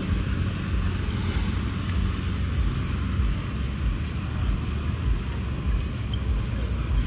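Outdoor street ambience dominated by road traffic: a steady low rumble of passing vehicles with an even hiss above it.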